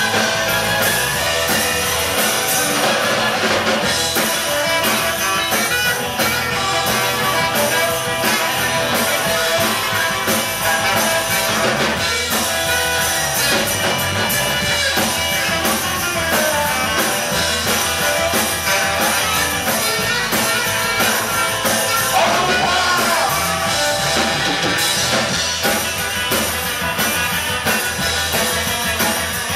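Live rock band playing: drum kit, electric guitars, fiddle and saxophone, loud and continuous.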